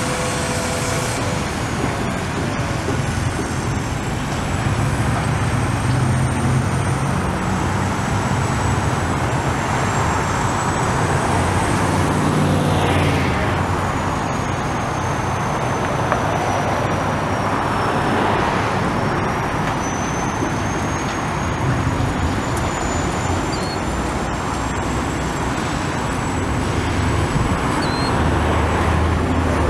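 Steady street and machinery noise: a Caterpillar 336E excavator's diesel engine running while it works, mixed with passing road traffic, including a truck going by about halfway through.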